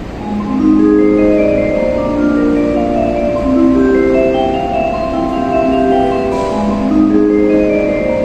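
Kanazawa Station's platform approach melody playing through the station speakers: a tune of quick successive chime-like notes climbing in pitch, with the phrase starting over about seven seconds in. It signals that a train is approaching the platform.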